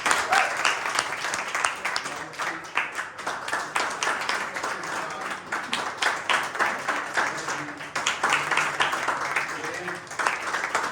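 Audience applauding: many hands clapping, with some voices underneath.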